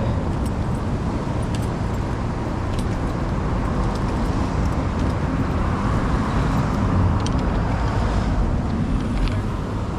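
Road traffic noise: cars passing by in a steady rumble.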